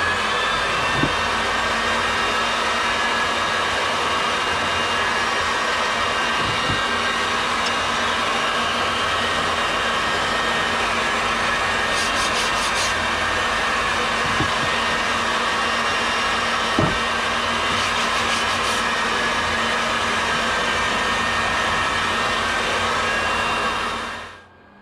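Electric power tool motor running steadily at full speed with a high whine, switched off near the end.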